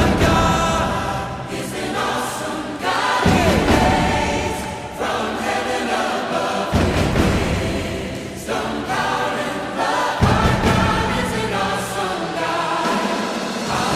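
Background music with voices singing together like a choir.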